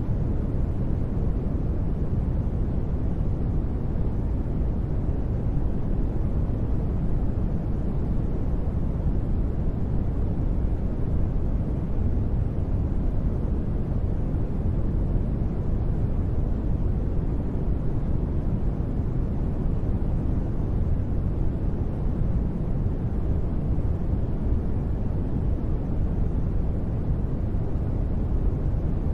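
Continuous sleep noise, sold as white noise: a steady, even rush that is deep and rumbly, with little high hiss, and does not change at all.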